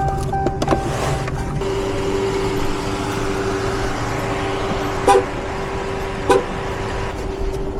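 A car's electronic warning chime beeping rapidly for about a second, then a steady electronic tone, with two sharp clicks in the second half.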